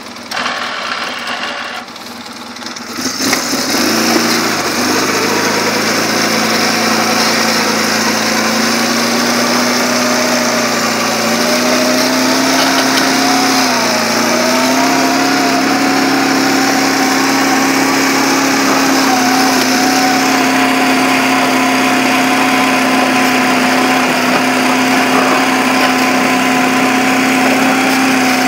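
2004 Polaris 600 twin ATV engine idling with a choppy beat, then revving up about three seconds in and running steadily under way. Its pitch rises a little and dips briefly about halfway through.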